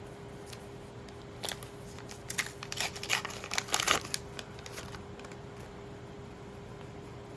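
Trading cards and booster-pack wrapper being handled: a cluster of crinkles and card flicks lasting about three seconds, starting about a second and a half in, over a faint steady hum.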